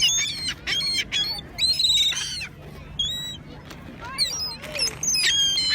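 A group of gulls calling again and again, with shrill, high squealing calls that overlap and follow one another closely.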